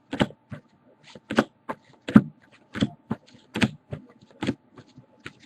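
Light, sharp clicks and taps at an irregular pace, roughly two a second.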